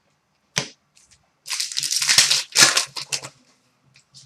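Foil hockey card pack wrapper crinkling as it is torn open and crumpled, in two bursts, after a single sharp click.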